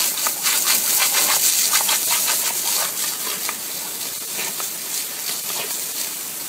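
Hard jet of water from a garden hose hissing and splattering as a German shepherd bites at the stream, with many short splashes against its mouth.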